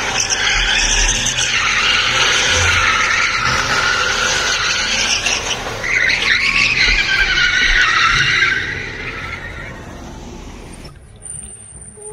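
Mazda RX-8's tyres squealing and skidding in a sustained drift: a long screech that wavers in pitch and is loudest about six to eight seconds in, then fades away after about nine seconds.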